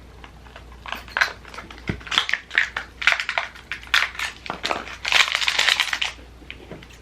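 Crackling, crinkling handling of small cardboard packaging as an advent-calendar box is opened, with many small clicks, densest about five seconds in.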